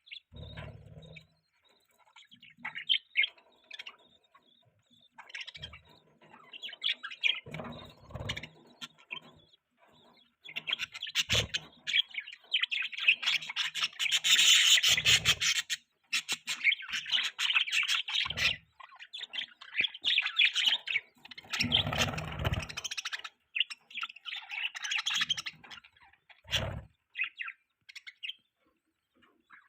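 Budgerigar chirping and warbling in bouts, with short pauses between them, along with a few brief low thuds.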